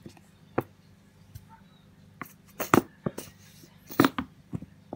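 Clear slime being squeezed and pressed by hand, giving off a run of sharp little pops and clicks as trapped air bursts out. The pops are loudest in clusters about two and a half seconds and four seconds in.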